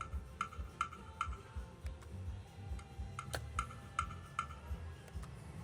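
Fire Link slot machine's electronic ticking sound effect, a short light tick repeated about two and a half times a second while the game plays out, over low casino hum.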